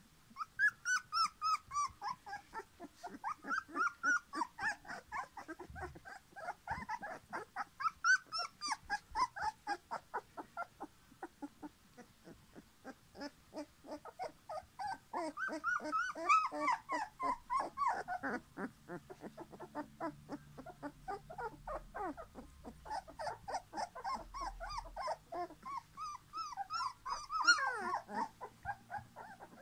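A litter of young puppies calling: a near-continuous run of short, high-pitched squeals and whines, several a second, as they play-wrestle.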